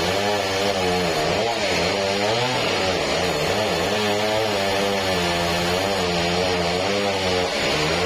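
A sawmill's engine-driven saw running loudly under load as it cuts a large meranti log. The engine note wavers up and down, with a steady hiss of sawing over it.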